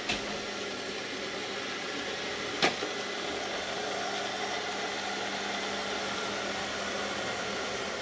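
ILIFE X5 robotic vacuum cleaner running across a wooden floor, its motor and brushes giving a steady whir with a faint hum. Two short sharp knocks stand out, one at the very start and one a little under three seconds in.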